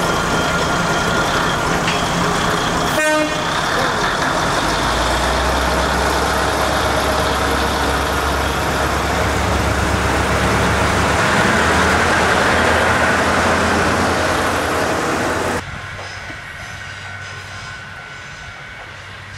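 Kominato Railway KiHa 200-series diesel railcar running at a station with a brief sharp sound about three seconds in; its engine then picks up a deep low rumble as it pulls away from the platform. Near the end the sound drops suddenly to a quieter, more distant train.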